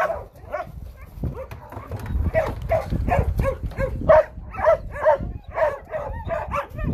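Dogs barking and yipping in a rapid run of short calls, about three a second.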